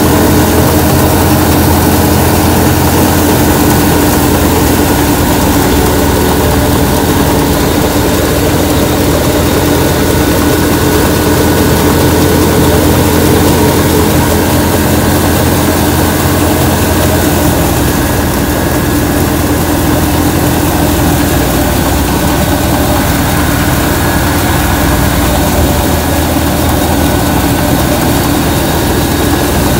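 Tractor-driven threshing machine running steadily under load while crop is fed in. A constant, loud mechanical drone with a few steady tones from the engine, belt and threshing drum.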